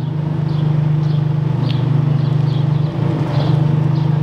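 Straight-piped Ferrari Enzo's V12 exhaust running at low speed as the car rolls along, a steady low note with a fast pulse.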